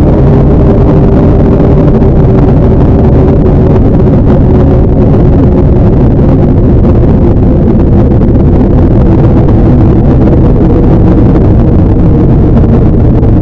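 Loud, heavily distorted and clipped low drone made with the G-Major meme audio effect, with a few faint steady tones held inside the noise.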